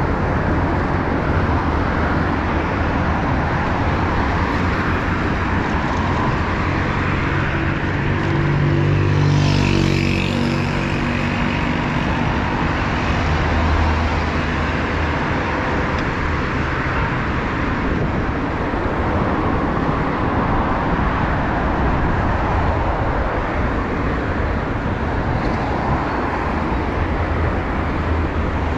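Road traffic: a steady wash of car tyre and engine noise, with one vehicle passing close and louder about nine to ten seconds in.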